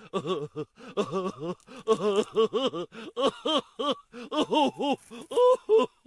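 A person's voice making a quick run of short vocal sounds, each rising and falling in pitch, several a second, with brief gaps between.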